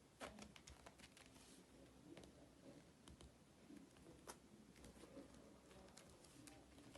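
Faint, scattered taps, clicks and light rustling of hands handling small items while decorating a binder, with one sharper click about four seconds in.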